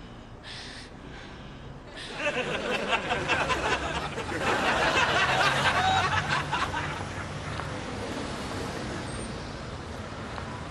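Studio audience laughter that breaks out about two seconds in, peaks in the middle and dies away, over steady street traffic and passers-by noise.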